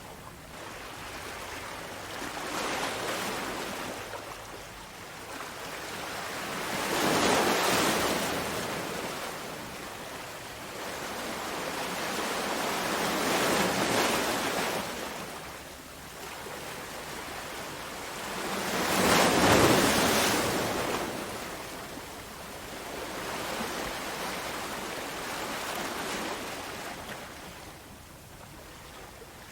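Ocean waves breaking in a rush of noise that swells and falls back about five times, every five or six seconds, the loudest swell about two-thirds of the way through.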